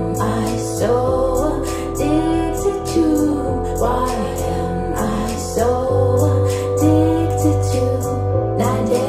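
Electronic dance-pop remix played through SVS Prime Wireless Pro active speakers and picked up by room microphones: sustained bass notes that shift every couple of seconds under a steady beat, with a wordless female vocal gliding over the top.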